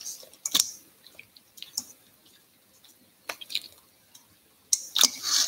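Marinated quail being tossed with a spatula in a metal mixing bowl: scattered wet squelches and clicks, with a louder cluster near the end.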